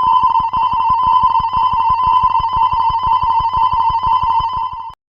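A cartoon level-crossing alarm sound effect that rings like a telephone bell: a fast-warbling electronic ring over a rapid, even clatter. It cuts off abruptly near the end.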